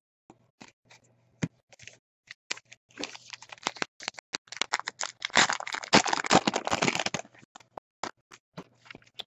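Trading cards being flicked and a 2014 Topps Gypsy Queen pack wrapper being torn open and crinkled by hand: scattered light clicks, then a dense crackling stretch from about two and a half to seven seconds in.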